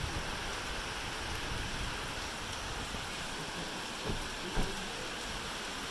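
Steady rain falling, an even hiss, with one brief knock about four and a half seconds in.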